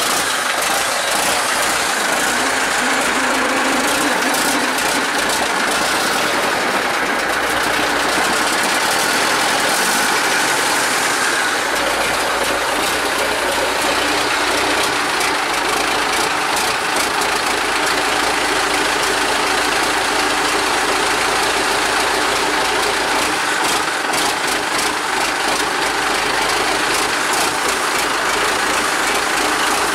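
IFA W50 truck's naturally aspirated diesel engine idling steadily just after a cold start, with its pre-heater used to help it fire.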